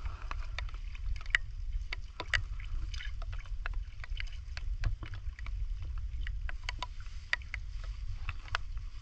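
Water sloshing and splashing in shallow swamp water as a metal crab hook is worked through the muddy bottom, with many irregular sharp ticks. A steady low rumble of wind on the microphone runs underneath.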